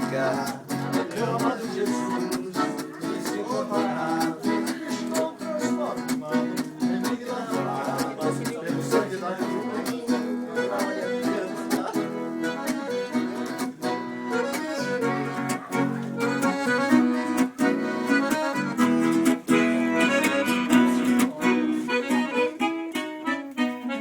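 Viola caipira, the Brazilian ten-string folk guitar, played instrumentally: a steady run of strummed chords and plucked notes, a little louder in the second half.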